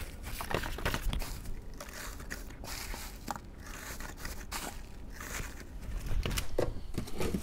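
Hands rummaging through shredded paper packing in a cardboard box: irregular rustling and crinkling, a little louder near the end.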